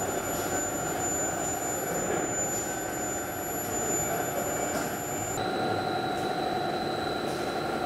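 Steady factory machine noise of a steel-bar induction heat-treatment line, with thin, steady high-pitched whines over it. About five seconds in, the sound changes abruptly to a bar-straightening machine running, with a different steady whine.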